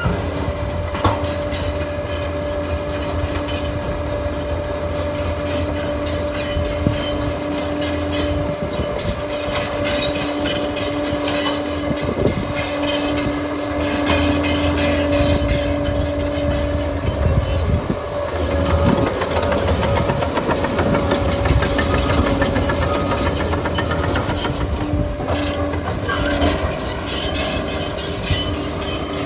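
Liebherr 746 crawler dozer working: its diesel engine runs under load with a steady whine, and the steel tracks clatter. The whine breaks and settles lower about two-thirds of the way through, as the load changes.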